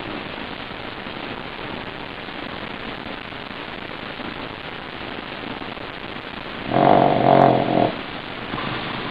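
Pug snoring in its sleep: a steady rasping breath, then one loud, pitched snore lasting about a second near the end.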